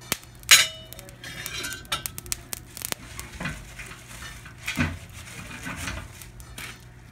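Split wood logs burning in an open fire, with scattered sharp crackles and pops over a steady low hum. A few louder clinks of dishes and cutlery come through, the loudest about half a second in.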